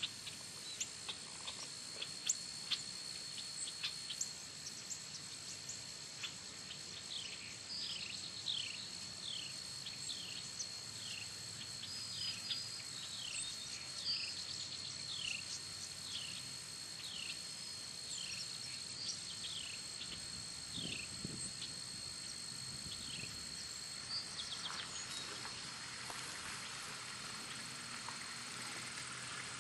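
Countryside ambience: a steady high-pitched insect chorus, with a bird repeating a short down-slurred whistle about once a second for some fifteen seconds through the middle. A few sharp clicks sound in the first three seconds.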